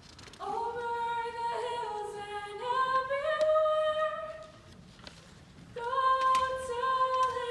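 High voices singing unaccompanied in long held notes. A phrase steps upward in pitch over about four seconds, there is a short pause, and a second phrase begins near the end.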